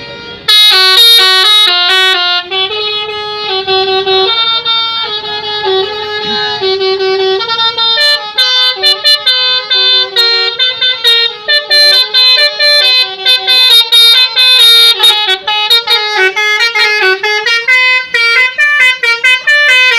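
Tour bus's basuri musical horn playing a melody of quick stepped notes, starting about half a second in.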